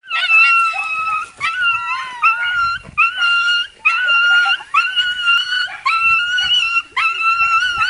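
Small grey dog whining in excitement at greeting a person: a string of about eight high, drawn-out whines, each just under a second long, one after another with short breaks.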